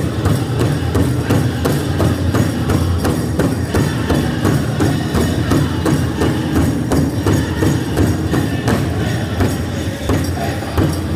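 Powwow drum group playing a chicken dance song: a large hand drum struck in a fast, steady beat by several drummers, with the group's voices singing over it.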